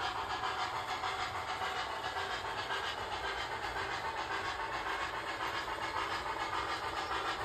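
Sound decoder of an HO scale New York Central Mohawk 4-8-2 model steam locomotive playing steady steam hiss with a quick, even chuff, over the rolling of the model passenger train.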